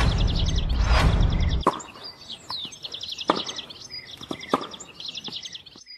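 Intro sound effect: a loud, low rumbling whoosh that cuts off about a second and a half in. It gives way to rapid, repeated bird-like chirping trills, broken by a few sharp clicks.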